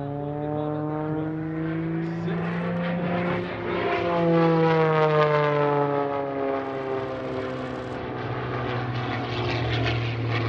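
MXS aerobatic plane's piston engine and propeller running hard through a dive and pull-out, its tone rising in pitch for the first few seconds, loudest about four seconds in, then falling in pitch as the plane goes by.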